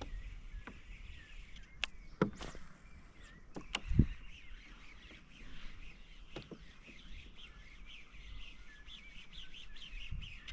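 Small birds chirping, many short quick calls one after another. A few sharp knocks sound about two seconds in, and a louder thump comes about four seconds in.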